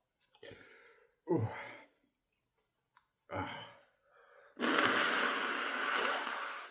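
A man breathing heavily after a sneeze. A few short, ragged breaths come first, then about halfway through a long, loud hissing blow of breath lasting about two seconds.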